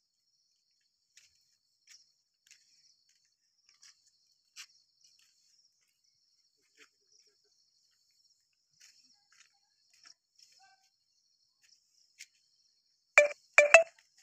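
Insects trilling steadily at a high pitch, with a few faint clicks. Near the end come two brief, loud sounds close together.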